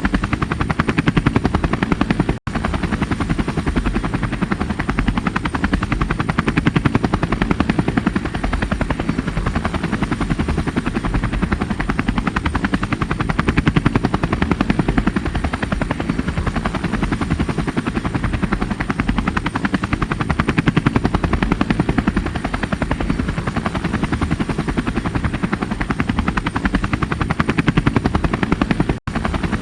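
Helicopter rotor running steadily, with a rapid, even chop of the blades over a deep engine rumble. The sound cuts out for an instant twice, once about two seconds in and once near the end.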